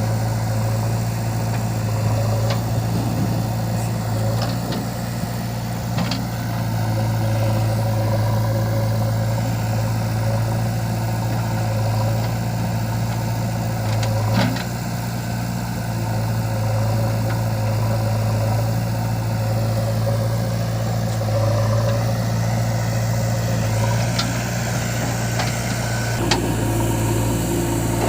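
Heavy diesel engine of earthmoving machinery running steadily at idle, with a few short knocks, the clearest about halfway through.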